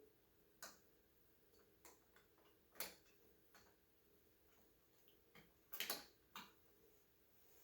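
Faint, scattered clicks and taps of tweezers and small metal model parts being handled while a pin is fitted into a scale model crane, about eight irregular ticks with the loudest near the middle and a quick cluster near the end.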